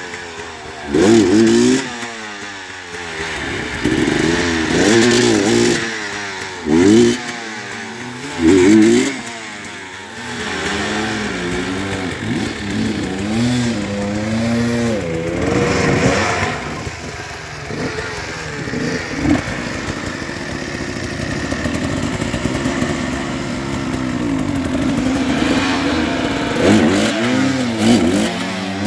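Enduro dirt bike engine revved in short repeated bursts, the pitch rising and falling each time, as the bike struggles for grip on a muddy climb. Through the middle it runs at a steadier pitch, then a few more rev bursts come near the end.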